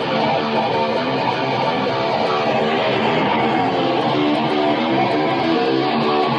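Music led by strummed guitar, playing steadily.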